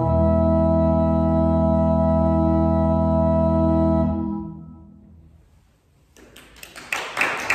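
Church pipe organ holding a closing chord, released about four seconds in, with the church's reverberation dying away. Applause breaks out about six seconds in.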